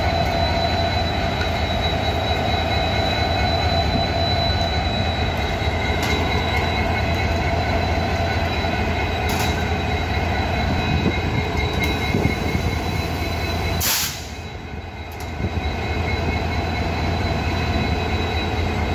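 EMD two-stroke diesel engine of a WDP-4D locomotive idling while it stands, a steady low drone with steady whining tones above it. A short sharp burst of noise about fourteen seconds in.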